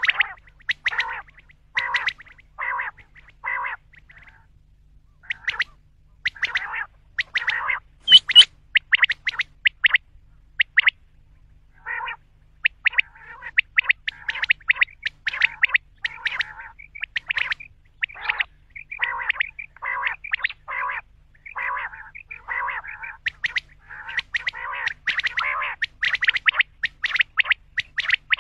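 Common quail calling: a dense series of short, repeated calls with brief pauses, and a sharp click about eight seconds in.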